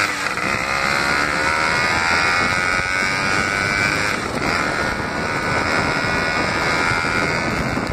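Suzuki AX100 two-stroke single-cylinder engine running as the motorcycle rides along a gravel road, with heavy wind and road rumble on the handlebar-mounted microphone. The engine note drops slightly at the very start, then holds steady.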